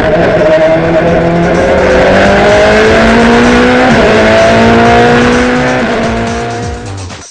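Ferrari F430 GT2's V8 engine heard from inside the cockpit under full acceleration, its pitch climbing steadily with two quick upshifts, about four and six seconds in. The sound fades out near the end.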